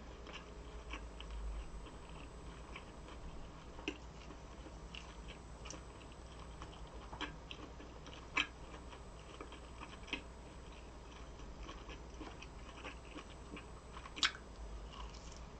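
Close-miked chewing of a Purinkle-seasoned hot dog: soft, chewy mouth sounds with scattered wet clicks, the sharpest about eight and fourteen seconds in.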